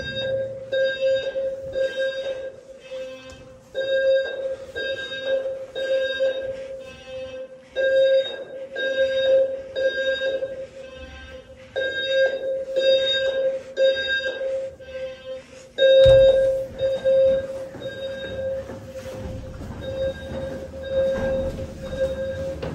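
Simplex fire alarm sounders, a TrueAlarm low-frequency sounder base and TrueAlert ES speaker strobes, sounding the temporal-3 evacuation signal. A low tone of about 520 Hz beeps three times, half a second each, then pauses, and the group repeats about every four seconds.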